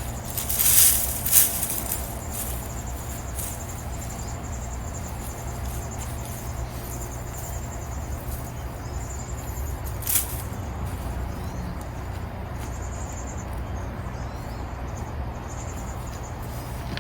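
Faint insect chirping over a steady low rumble, with a few short rustling scrapes about a second in and again about ten seconds in.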